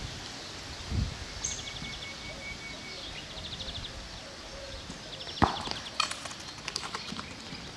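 A football kicked on a concrete pad, with one sharp thump about five and a half seconds in and light taps of play afterwards. Birds sing from the trees in short, rapid trills several times.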